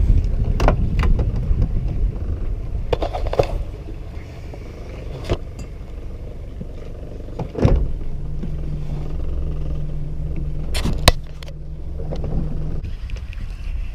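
Low rumble aboard a small fishing boat, broken by a few sharp knocks. A steady low motor hum runs from about eight seconds in until shortly before the end.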